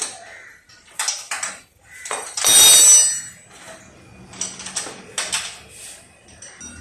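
Metal tools and parts clinking and clanking as a motorcycle is worked on, with one louder rasping, ringing burst lasting nearly a second about two and a half seconds in.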